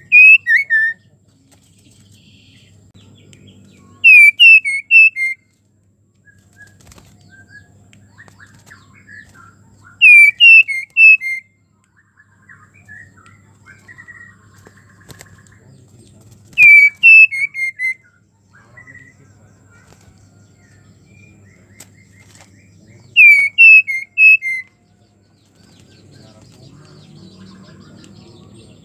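White-rumped shama, a female in breeding condition calling to draw males, giving a short phrase of a few quick, descending whistled notes. The phrase comes five times, about every six seconds, with softer scattered chirps between.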